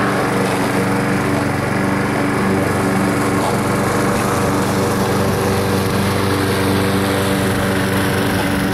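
A small engine running steadily at one constant pitch, fairly loud throughout.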